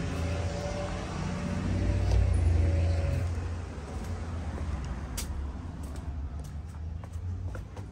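Road traffic on a busy street: a car going by with a low rumble, loudest about two to three seconds in and fading after.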